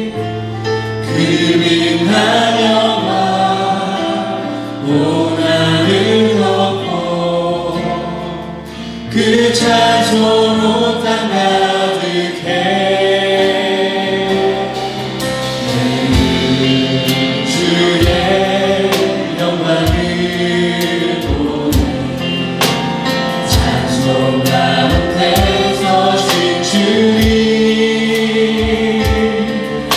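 A church worship band and singers performing a praise song: voices singing over sustained keyboard and bass notes. Low drum beats join about halfway through.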